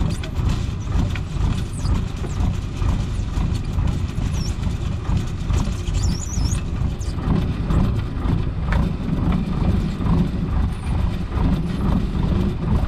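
Fishing boat's engine running with a steady low rumble, under irregular clicking and knocking as a gillnet is hauled aboard by hand, with a few brief high squeaks about halfway.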